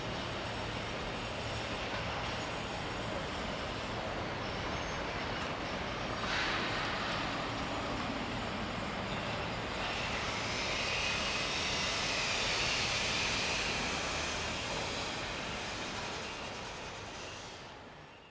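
Steady city rumble with a train passing, growing louder about ten seconds in. The sound then fades out near the end.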